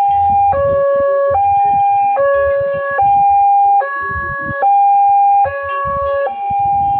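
Two-tone hi-lo siren alternating steadily between a higher and a lower note, each held for just under a second, with irregular low rumbling underneath.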